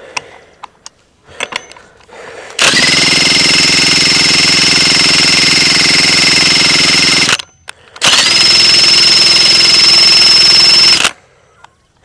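A power drill spinning the Stihl FS 110R trimmer's engine over in place of its jammed recoil starter: two long, loud runs, each with a whine that rises to a steady pitch as it spins up, then cuts off suddenly.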